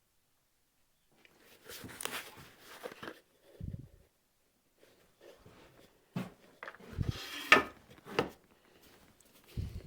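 Irregular handling noises: rustling, light clicks and a few dull knocks of things being picked up and set down, with the sharpest click about three-quarters of the way through.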